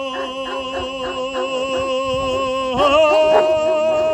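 Music with a voice singing long held notes over a steady pulse. The voice steps up in pitch and gets louder near three seconds in.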